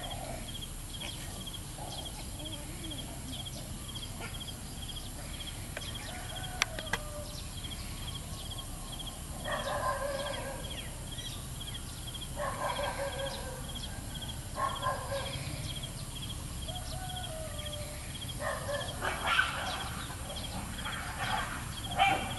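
Chickens clucking in several one-second bouts from about halfway through, the strongest near the end, over a steady high chirp repeating about twice a second. One sharp click about a third of the way in.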